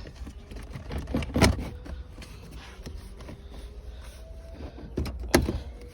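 Plastic lower center console trim being handled and lined up on its locating guides, with two sharp plastic knocks, about a second and a half in and again near the end.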